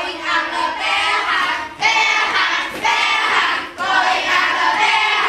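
A group of children chanting lines together in unison, in phrases of about a second with short breaks between them.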